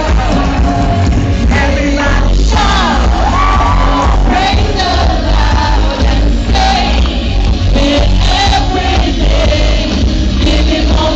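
A live worship band playing loud pop-rock with a lead singer, heavy bass and drums, heard from within the audience.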